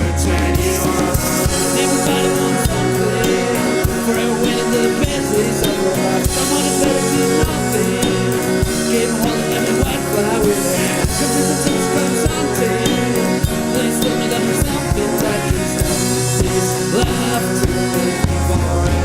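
Indie folk-rock band playing live: guitars and bass held over a steady drum-kit beat, in an instrumental stretch without sung lyrics.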